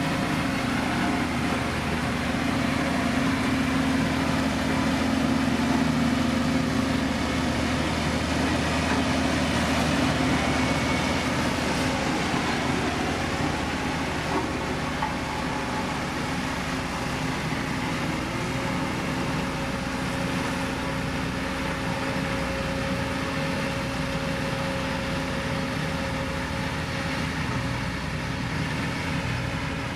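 Engine of heavy road-building machinery (motor grader or road roller) running steadily, the pitch of its hum shifting about halfway through.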